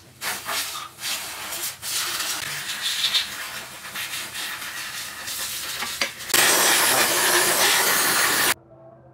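Compressed air hissing from an air blow gun, in uneven bursts at first, then a louder steady blast about six seconds in that cuts off sharply some two seconds later: air being blown over and through a bare engine crankshaft to clean it.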